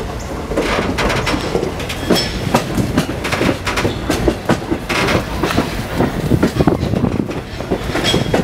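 Passenger car of a moving train running over the rails, with a steady low rumble and a dense, irregular clatter of wheel clicks and knocks as the car rattles along.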